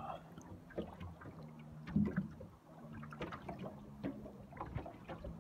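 Small waves lapping and slapping against the side of a fishing boat's hull in short irregular knocks, the loudest about two seconds in. A faint steady low hum runs underneath.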